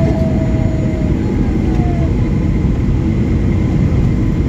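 Inside the cabin of a Boeing 737-800 rolling on the ground: the CFM56 engines and the airframe give a loud, steady rumble, with a thin steady whine above it.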